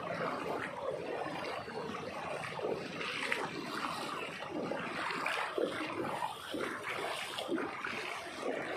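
Floodwater running over a road and sloshing around the legs of people wading through it, a steady watery rush with uneven splashy surges.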